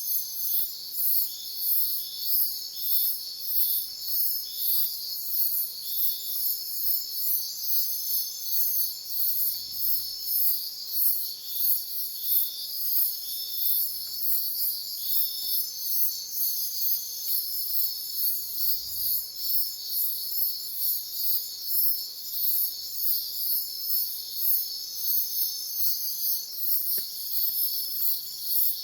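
Night insect chorus of crickets and other insects: a high chirp pulsing about one and a half times a second over steady, overlapping trills.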